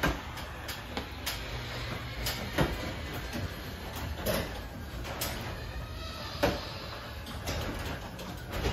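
Garage door closing under its motorized opener: a steady low rumble of the drive with irregular clacks and rattles as the door rolls down its tracks.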